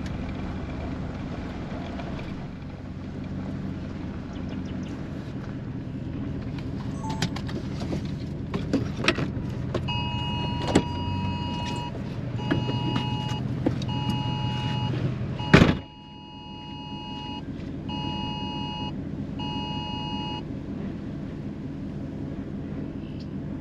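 Emergency alert tone from a phone inside a running vehicle: a two-tone beep repeating about once a second for some ten seconds over the steady hum of the car. Scattered light taps come before the alert. A single loud thump about two-thirds of the way through is the loudest sound, and the background drops quieter after it.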